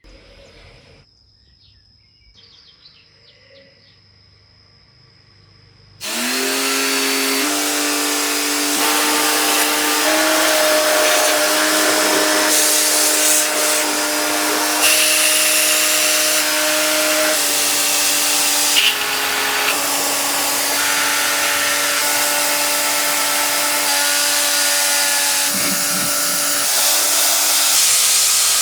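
Electric pressure washer starting about six seconds in: its motor whine rises in pitch and settles into a steady hum, shifting pitch now and then under load, over the hiss of the water jet. Before it starts there is only a faint high steady tone and a few chirps.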